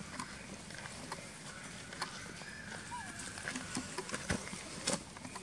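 Outdoor background with a faint steady high hum, scattered soft clicks and rustles, and one brief high squeak about three seconds in.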